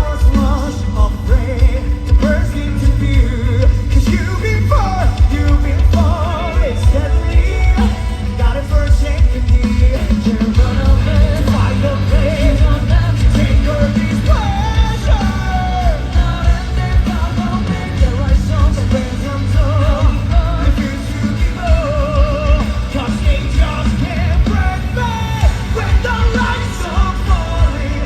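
Rock band playing live: a male lead vocal with wide vibrato, sometimes belted, over pounding drums, bass and electric guitars.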